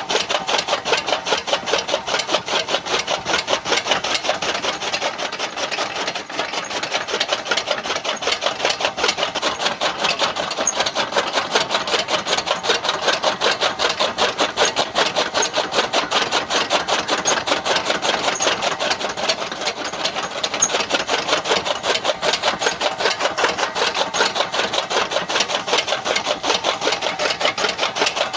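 Small homemade chaff cutter mechanism running, with a fast, even rasping rhythm of about four to five strokes a second that holds steady throughout.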